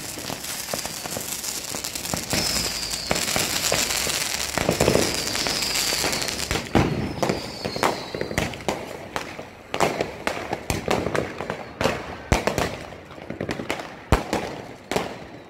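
Many fireworks and firecrackers going off at once: for about the first half, a dense, continuous crackle of small bangs with a few whistles falling in pitch. After that it thins out into separate sharp bangs at irregular intervals.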